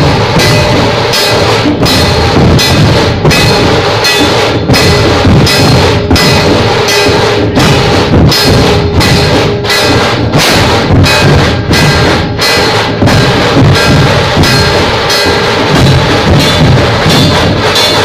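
A dhol-tasha pathak playing: many large barrel-shaped dhol drums beaten together in a loud, steady, driving rhythm that runs without a break.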